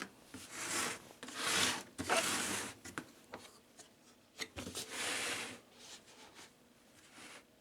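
Handling noise from a socket wrench set and its case: four rubbing swishes in the first six seconds, with a few sharp clicks between them.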